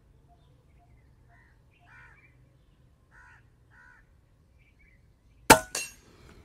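A single sharp shot from a P15 airgun about five seconds in, followed a quarter second later by a second, weaker crack. Before it, crows caw faintly in pairs of calls.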